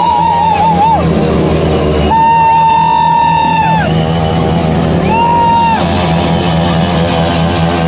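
Rock music with a steady beat and a long-held, wavering lead melody.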